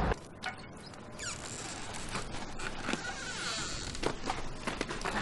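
Outdoor ambience: insects buzzing high, with scattered short clicks.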